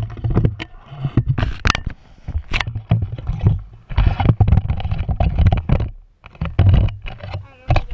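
A plastic 2x2 puzzle cube being handled and turned close to the microphone: irregular clicks and knocks over a low rumbling handling noise.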